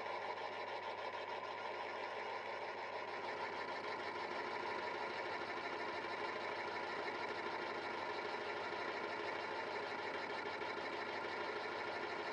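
Multitech 800 Plus lathe running steadily, its spinning boring head taking a boring pass to enlarge the cylinder seat of a scooter crankcase.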